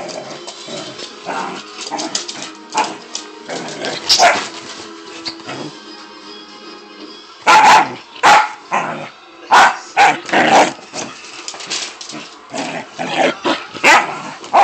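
Puppy barking back in a run of short, sharp barks, most of them bunched together in the second half, with music playing faintly underneath.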